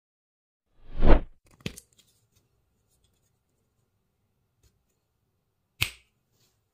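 A short, loud whoosh about a second in, followed by a light click, then a single sharp click near the end.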